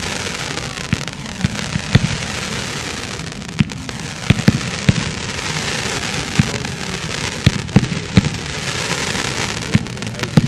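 Fireworks display: shells and comets launching in a continuous hissing crackle, punctuated by sharp bangs at irregular intervals, about one or two a second.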